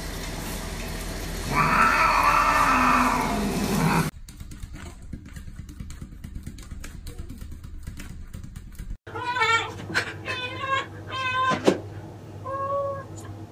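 Wet cats yowling and meowing while being bathed. A long loud yowl comes over the hiss of a running hand-held shower head. After a quiet stretch, several short meows follow near the end.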